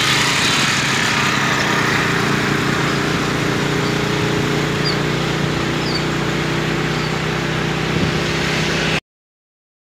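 Motorcycle engine running steadily at cruising speed, with wind and road noise, heard while riding on the bike. It stops abruptly near the end.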